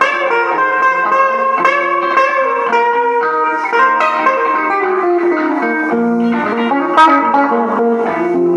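Semi-hollow electric guitar playing an instrumental blues passage, picked notes moving up and down, with a sharp strummed accent about seven seconds in.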